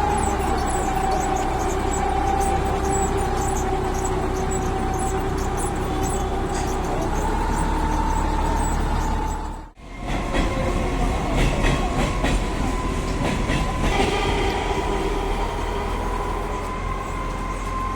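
A rail vehicle running along the track, a steady rumbling noise with a sustained high whine over it. The sound cuts out abruptly for a moment just before halfway and then resumes.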